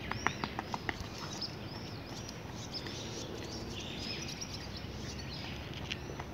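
Trainers tapping quickly on asphalt in the first second of a fast-footed agility ladder drill, then small birds chirping repeatedly over steady outdoor background noise.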